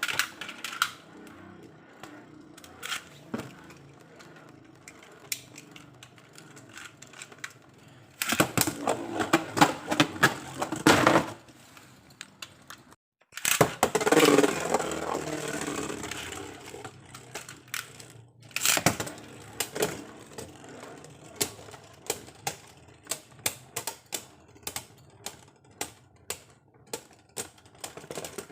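Plastic Beyblade spinning tops and parts clicking and clattering. There are many single sharp clicks, with denser rattling stretches about eight, thirteen and nineteen seconds in.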